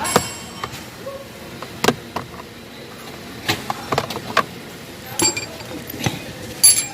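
Hand tools and small metal parts clicking, knocking and clinking during disassembly of a car's steering column, in irregular sharp strokes, with ringing metal clinks just after the start and again near the end.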